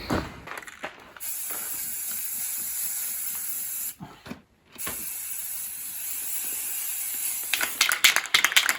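Aerosol spray paint can spraying in two long hisses of about three seconds each with a short break between, then a quick run of rattling clicks near the end as the can is shaken.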